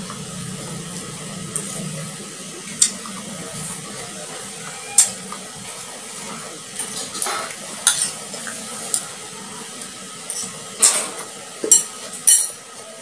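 Metal spoon clinking and scraping against a plate and a rice bowl while eating: scattered sharp clinks, coming more often in the second half.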